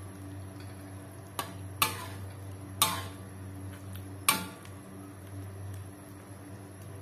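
Spatula stirring a thick chilli sauce in a large wok, knocking against the pan four times in the first few seconds, each knock leaving a brief metallic ring, over a low steady hum.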